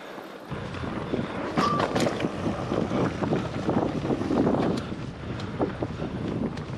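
Mountain bike ridden along a rocky dirt singletrack: wind buffeting the microphone, with the tyres rolling over dirt and stones and the bike rattling in many short clicks and knocks.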